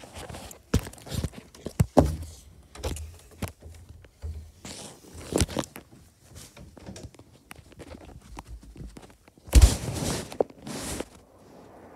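Irregular knocks, thumps and rustling from a phone being handled and carried, its microphone rubbing against hand and clothing, with the loudest thump near the end.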